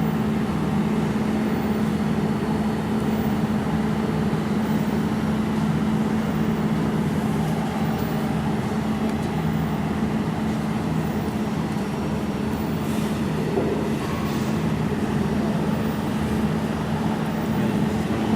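Steady machine hum with a constant low drone that does not change in pitch or level.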